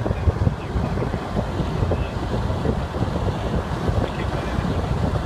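Wind buffeting the microphone in an open convertible moving at road speed, a steady low rumbling rush with the car's road noise underneath.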